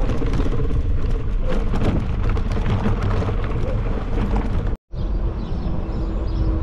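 Heavy wind buffeting and rumble on the microphone while riding a bicycle, a dense, steady noise that cuts out briefly about five seconds in.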